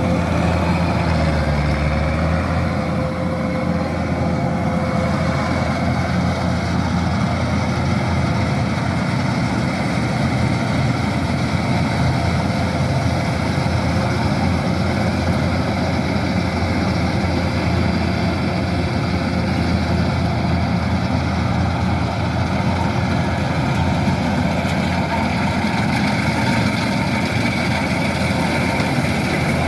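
Kubota DC-108X combine harvester's diesel engine and machinery running with a steady, unchanging drone.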